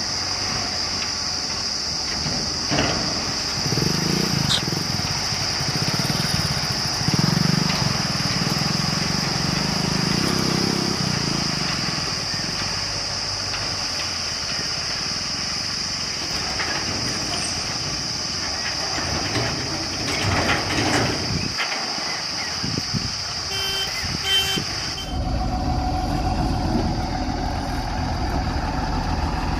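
Heavy diesel machinery running, with a steady high-pitched whine above the engine. A few short beeps sound near the end, then the whine stops abruptly and the engine sound becomes deeper and louder.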